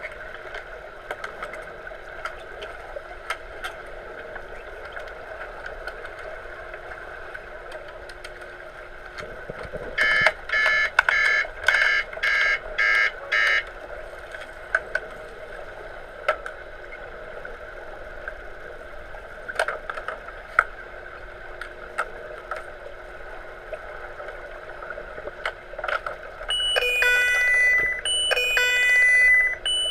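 Electronic underwater hockey sounder heard through the water. About ten seconds in it gives a run of about seven quick, even beeps, and near the end a longer sequence of tones stepping between pitches, the referee's signal that stops play. Underneath runs a steady underwater hiss with scattered sharp clicks.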